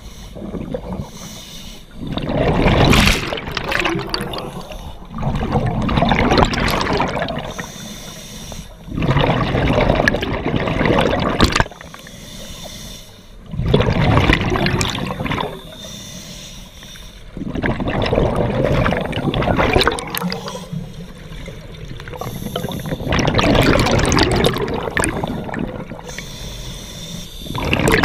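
Scuba diver breathing through a regulator underwater: a loud rush of exhaled bubbles about every four seconds, with softer hissing inhales between.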